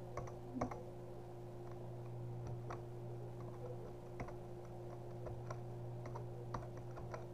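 Faint, irregular key clicks of a computer keyboard as an answer is typed, over a steady low hum.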